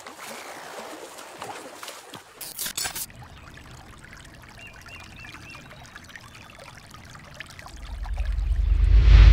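Swimming pool water splashing and trickling, with a louder splash about two and a half seconds in. Near the end a deep rumbling whoosh swells up to a loud peak.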